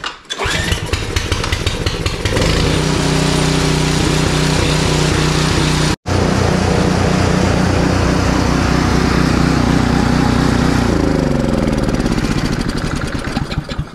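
Briggs & Stratton 8.5 hp engine on a Craftsman two-stage snowblower, starting about half a second in and then running steadily on its rebuilt carburetor (new needle and seat) without stalling. There is a brief break about six seconds in. Near the end the engine slows and winds down, its pitch falling.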